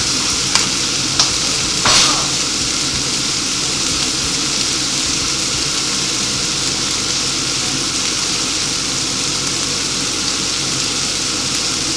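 Beef strips with onion and tomato sizzling steadily in a hot frying pan, with a few light clicks in the first two seconds.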